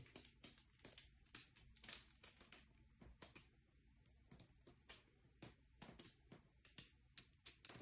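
Near silence: room tone with faint, irregular small clicks and ticks, a few each second.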